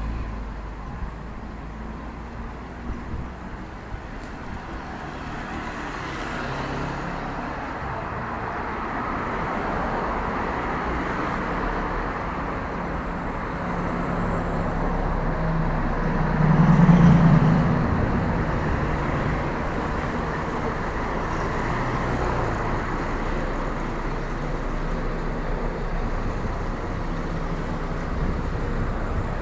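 Street traffic: cars driving past on a city street, a steady tyre-and-engine rush that builds up, with one vehicle passing close and loudest about 17 seconds in.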